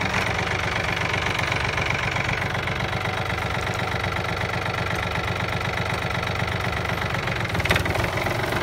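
Yanmar F-180 compact tractor's three-cylinder diesel engine running steadily as the tractor drives over the ground, with a brief knock near the end.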